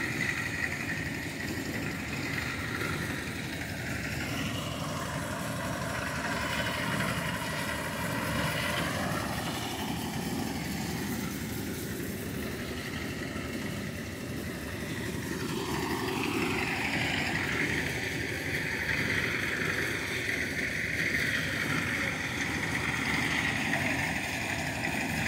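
An engine running steadily, its tone dipping and then rising again partway through.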